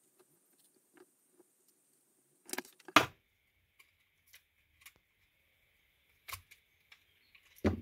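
Sharp clicks and snaps of an electric shaver's plastic housing and circuit board being worked apart by hand to free its battery cell. The loudest two snaps come about two and a half and three seconds in, with lighter clicks after.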